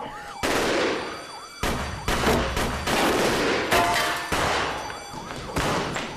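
A series of rifle shots, about one a second, each followed by a long echoing decay in a hallway, with a siren wailing faintly underneath.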